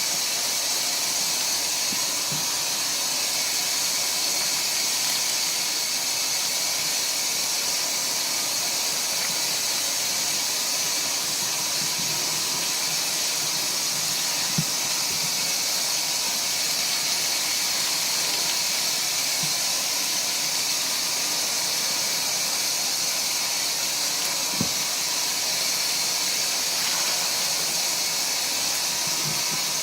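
Steady hiss of water running into a washing machine as it fills, with two faint knocks partway through.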